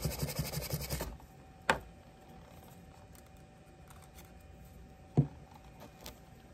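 A cloth-wrapped wooden stick scrubbing quickly back and forth in the nail nick of a steel knife blade, a fast scratchy rubbing that clears crud out of the groove. It stops about a second in. Two light knocks follow as the tools and knife are handled, the second louder.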